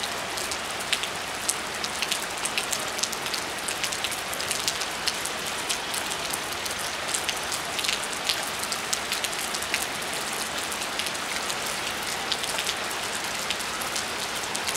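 Rain falling steadily on a concrete rooftop: an even hiss dotted with many sharp ticks of individual drops striking.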